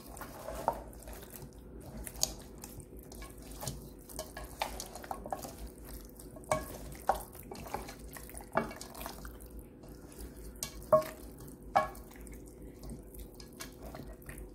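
Raw seasoned chicken drumsticks being mixed by hand in a stainless steel bowl: irregular wet squelches and clicks, with occasional knocks of meat against the bowl. A faint steady hum runs underneath.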